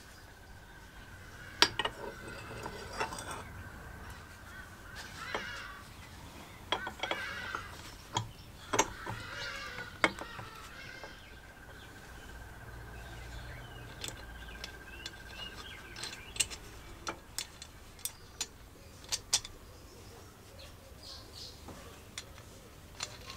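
Scattered metallic clicks, clinks and light knocks of steel parts and hand tools as bolts and nuts are fitted to a benchtop metal shear. A faint steady high tone runs behind them until about two-thirds of the way through.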